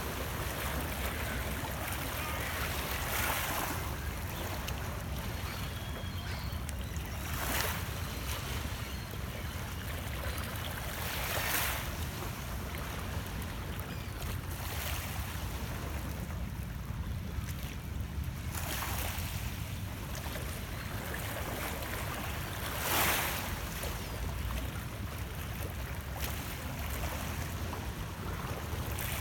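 Small lake waves lapping and washing over shoreline rocks: a steady wash of water, with a louder splash about every four seconds.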